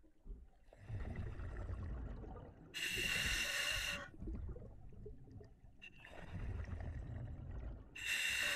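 Scuba diver breathing underwater through an OTS Guardian full-face mask regulator: two breaths, each a low rush of exhaled bubbles followed by a hissing inhale lasting about a second.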